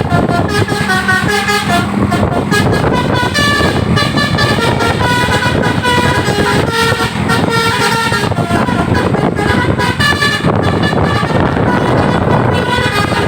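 Tour bus's telolet horn playing a quick tune of changing notes over loud engine and road noise.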